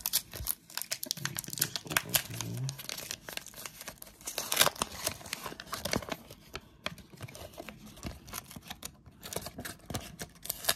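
Sheet of paper crinkling and tearing in irregular crackles as it is unfolded and pulled open by hand.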